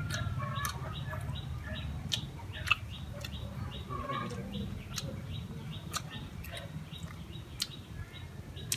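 Faint, quick rhythmic chirping, about three short chirps a second, over a steady low hum, with a few scattered sharp clicks.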